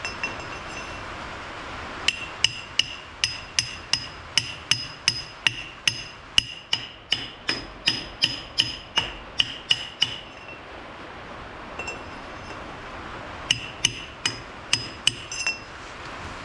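A hammer striking a 2-inch piece of stainless steel used as a seal driver, knocking a 40x52x7 mm output shaft oil seal in flush on a portal gear box. Quick, even blows about three a second, each with a short metallic ring, then a pause and a shorter run of blows near the end.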